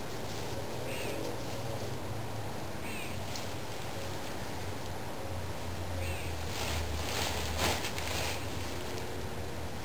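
Nylon tent fabric rustling as it is lifted and shaken out, loudest about seven to eight seconds in. A bird gives a short call three times, over a steady low hum.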